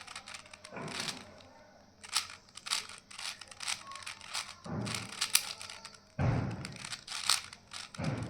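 Plastic 4x4 Rubik's cube being turned by hand: quick irregular clicks and clacks as its layers snap round, with several low thuds from the cube being handled.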